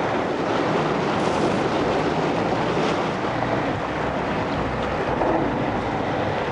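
Boat engines running steadily, mixed with a constant rush of wind on the microphone and water noise from the moving hull.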